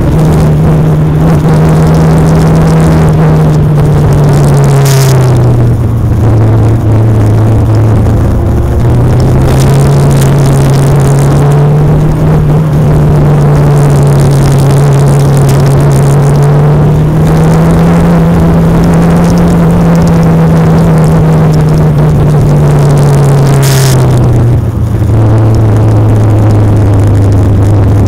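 Legend race car's Yamaha four-cylinder motorcycle engine running hard at racing speed. Its pitch drops about five seconds in, climbs back over the following seconds, and drops again near the end.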